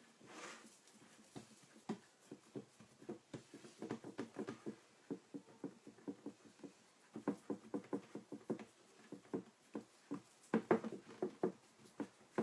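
Fingertips patting and pressing soft tart dough into a glass pie dish, working it up the sides: quick, irregular soft taps, several a second, with a short lull a little past the middle.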